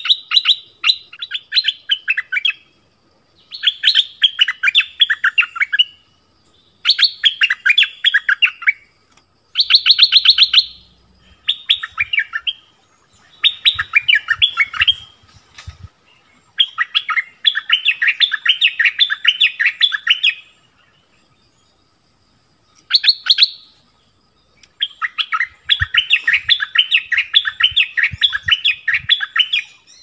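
Stripe-throated bulbul singing: loud phrases of rapid, bubbling notes, one to four seconds each, repeated with short pauses.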